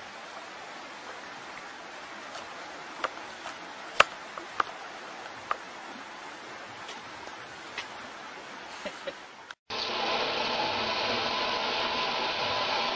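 Steady hiss with a few sharp clicks, the loudest about four seconds in. After a brief drop-out near ten seconds, a tap runs steadily into a bathroom sink, louder than before.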